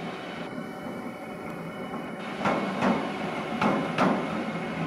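Siemens Vectron (Class 193) electric locomotive rolling slowly past. Its four wheelsets clack over a track joint in two quick pairs, the pairs about a second apart, over a steady rumble.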